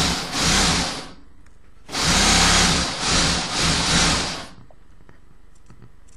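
Vacuum pump of a desoldering station running twice, a motor hum with a loud rush of air sucked through the heated nozzle, drawing molten solder and broken wire strands out of a plated circuit-board hole. The first run is short; the second, about two seconds in, lasts about two and a half seconds and swells three times.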